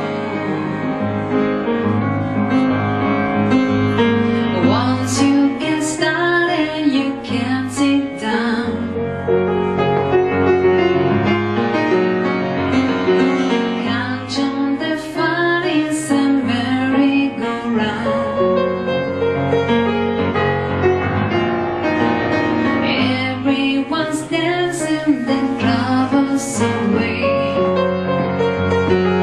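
Piano accompaniment with a woman singing over it in phrases, a live voice-and-piano duo performance.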